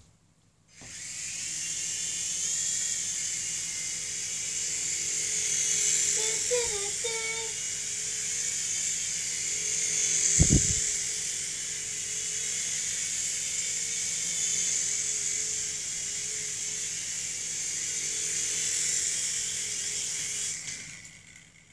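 Revell Roxter toy RC helicopter's small electric rotor motors whirring in a steady high-pitched whine. It starts about a second in and stops near the end, with a single dull thump about halfway through.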